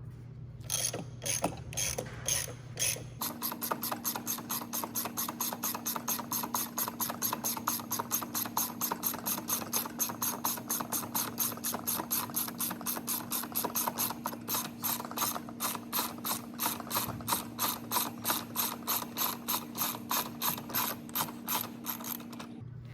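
Half-inch-drive ratchet with a 22 mm hex socket clicking as it turns out a motorcycle's front axle: a few separate clicks, then from about three seconds in a long, even run of about three clicks a second over a steady hum.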